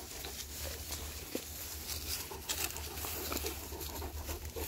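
A dog chewing and munching a fallen avocado off the ground, irregular soft clicks of chewing with grass and dry leaves rustling around its muzzle.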